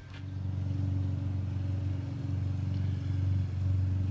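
A vehicle engine idling, a steady low hum that comes up over the first second and holds even.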